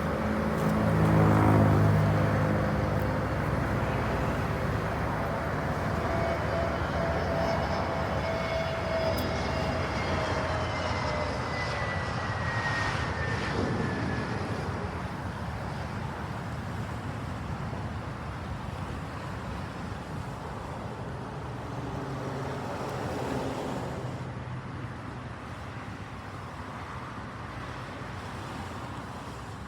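Jet airliner's engines passing close by: a loud rumble with a whine that slowly falls in pitch as the aircraft goes past, then fades away.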